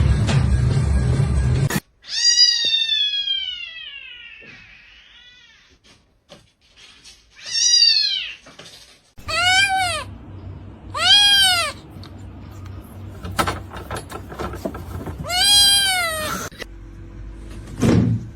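A cat meowing five times. The first meow, about two seconds in, is long and falls in pitch; the four shorter ones that follow rise and fall, spread through the rest of the stretch.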